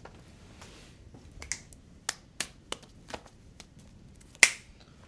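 Fingers snapping: a scatter of sharp, irregular snaps, the loudest about four and a half seconds in.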